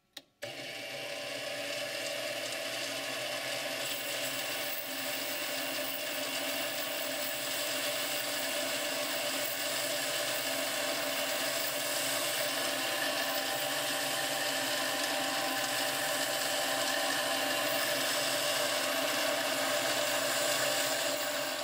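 Harbor Freight 7x10 mini lathe running, its boring bar cutting the inside of a PVC pipe: a steady motor hum with the hiss of the cut. It starts with a short click about half a second in.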